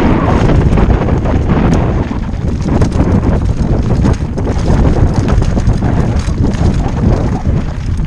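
Wind buffeting a helmet-mounted microphone on a downhill mountain bike run, with the bike rattling and its tyres knocking over loose rock and ruts in many quick, irregular clicks.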